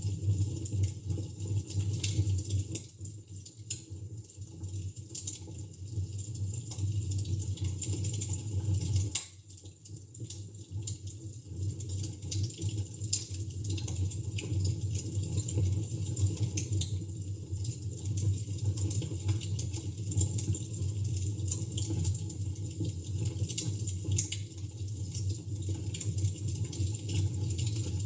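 Fire crackling in a fireplace: irregular small pops and snaps over a steady low hum, with a brief lull about nine seconds in.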